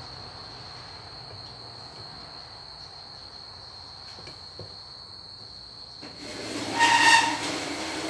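Steady high-pitched insect trill, likely crickets. About six seconds in, a much louder noise swells up with a held tone at its peak, then begins to fade near the end.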